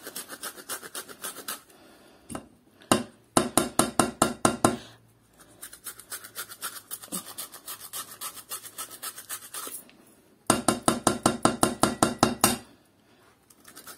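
Kitchen knife chopping capsicum on a cutting board in fast runs of about seven strokes a second. The chopping is lighter at first and louder in two runs, about 3 seconds in and again about 10 seconds in.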